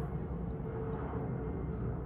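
Steady low rumbling background noise with a faint hum, without distinct knocks or pours.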